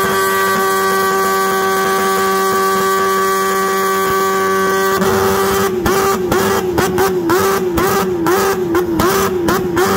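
A small two-stroke engine held flat out, giving a loud, steady high-pitched note. About five seconds in the note starts wavering, dipping and recovering about twice a second with a sharp crackle.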